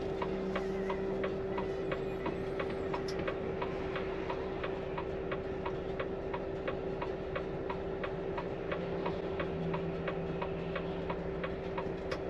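Truck turn-signal indicator ticking steadily in the cab, about two to three clicks a second, over the steady hum of the running Volvo FM truck.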